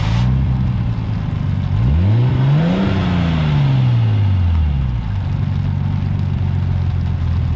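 1991 Nissan Skyline's engine idling steadily, revved once about two seconds in: the pitch climbs for about a second, then falls slowly back to idle.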